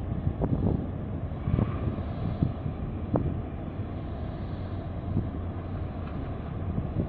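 Low, steady engine rumble from a large container ship and the harbour tug working alongside it, with wind buffeting the microphone in gusts, mostly in the first three seconds.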